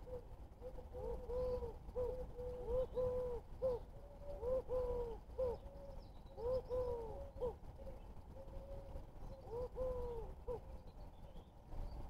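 A dove cooing: a long run of low, rising-and-falling coo notes in quick groups, with faint high chirps of small birds now and then.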